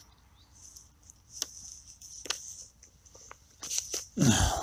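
A few light handling clicks and rustles, then a loud swish of jacket fabric brushing across the microphone near the end as the camera is reached over and handled.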